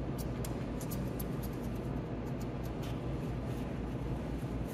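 Steady low hum of room noise, with faint scattered clicks and rubbing as fingers press and smooth epoxy putty onto a vinyl window frame.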